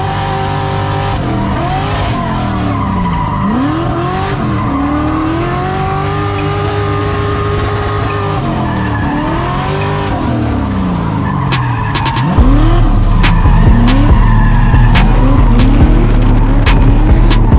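Drift car engine revving hard, its pitch swinging up and down again and again as the car slides, with tyre noise under it. About twelve seconds in the sound jumps louder, with a steady deep drone and fast sharp clicks.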